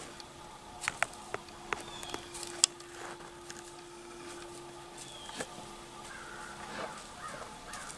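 A handful of sharp snaps and clicks in the first three seconds, the last the loudest, over a faint steady hum that stops near the end. A few short faint bird calls follow in the last second or so.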